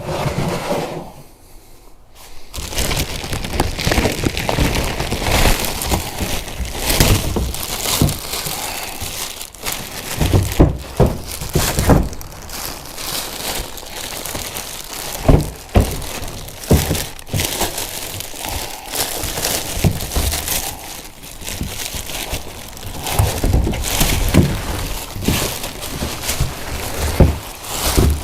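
Packaging crinkling and rustling, with frequent knocks and thuds, as a plastic cargo box is unpacked and handled.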